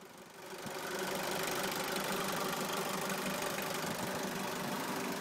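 Mitsubishi L300 van's diesel engine idling steadily. The sound comes up over the first second.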